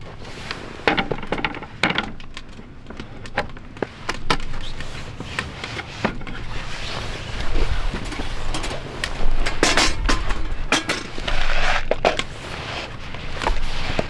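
Irregular knocks, clicks and rustling, the sound of objects being handled, with sharper clusters of knocks in the second half.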